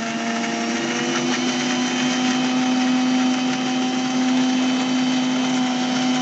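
Electric mixer-grinder running steadily at one pitch, grinding a wet load of peeled tomatoes, garlic, onion and spices into a chutney.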